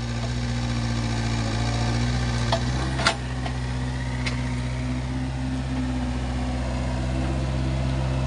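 Kobelco mini excavator's diesel engine running steadily under load, coming up in level at the start as it digs hard, stony ground. A couple of sharp metallic clanks about three seconds in, with a fainter one soon after, from the bucket working the rocks.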